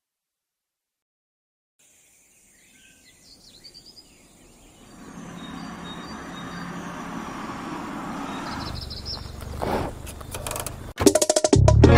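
A song intro in a music recording: total silence for about two seconds, then faint bird chirps over an outdoor ambience that swells into a steady noise. About eleven seconds in, the music comes in loudly with plucked strings.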